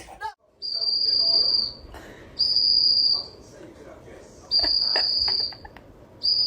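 A high, steady whistle tone sounded four times, each note about a second long and all at the same pitch, with a few faint clicks between the third and fourth notes.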